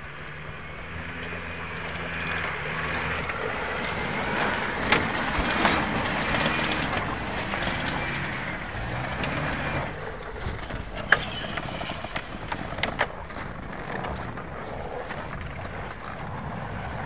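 A 4x4 van's engine revving up and down as it climbs through deep snow, with tyres crunching over snow and ice. A cluster of sharp cracks comes about two-thirds of the way through.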